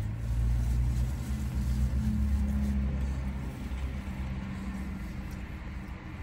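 Low vehicle engine rumble with a steady hum, louder for the first three seconds and then easing off.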